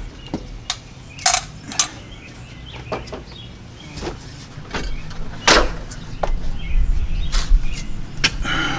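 Scattered sharp clicks and knocks of things being handled, with a low rumble that builds from about halfway through.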